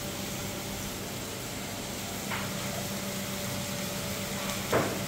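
Chicken mince cooking in an aluminium wok over a gas flame: a steady sizzling hiss under a low hum. A wooden spatula knocks against the pan twice, lightly about two seconds in and louder near the end.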